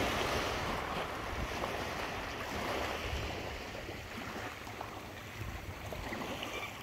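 Small waves washing on the shore with wind buffeting the microphone, a steady rushing noise with uneven low rumble.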